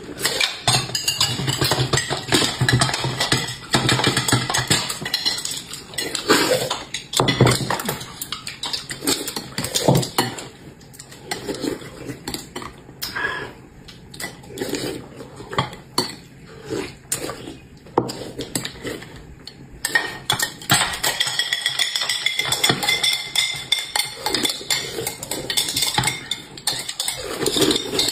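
Eating utensils clinking and scraping against dishes and bowls in quick, irregular clatter during fast eating.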